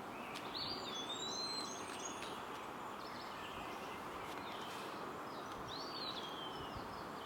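Outdoor background hiss with a small bird singing short, high, sliding phrases about half a second in and again around six seconds in.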